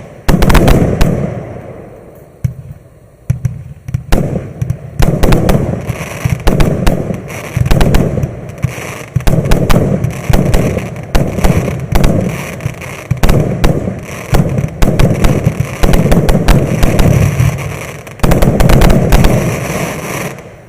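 A 128-shot consumer firework cake firing rapid volleys of launches and aerial bursts with crackling, the loud clusters coming one after another. The firing stops right at the end.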